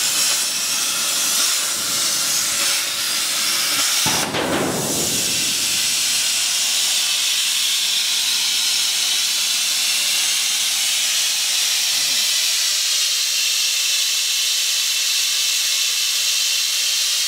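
CNC plasma cutting torch cutting steel plate: a loud, steady hiss of the plasma arc and its air jet, with a short surge about four seconds in.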